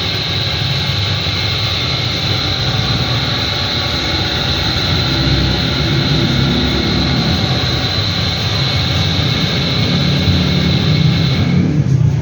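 LG washing machine running under a function test after servicing: a steady machine hum with a high whine over it that stops shortly before the end.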